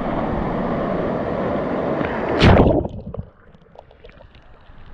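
Rough ocean surf rushing and churning around a camera held at the water's surface, then a loud splash about two and a half seconds in as a breaking wave hits. After it the sound drops low, with faint crackles.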